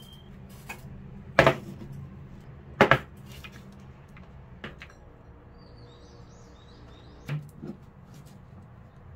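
Metal-cased supercapacitors set down on a wooden desk and knocking against each other as they are packed into rows: a few sharp clinks, loudest about one and a half and three seconds in (the second a quick double), with softer taps later.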